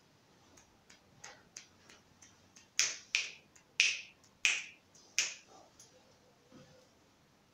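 A series of sharp snapping clicks: a few faint ones at first, then five loud ones about half a second apart in the middle, fading to a couple of faint ones.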